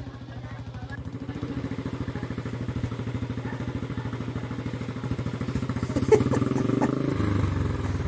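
Royal Enfield Bullet 350's single-cylinder engine running with a rapid, even beat, its exhaust at the water line. It gets louder about six seconds in, with a sharp knock.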